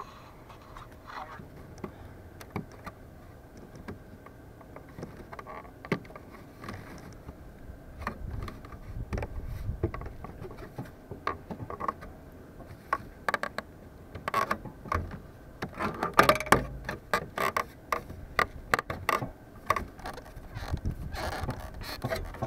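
Irregular clicks, taps and rattles of soffit panels and a ladder being handled, sparse at first and then denser and louder through the second half.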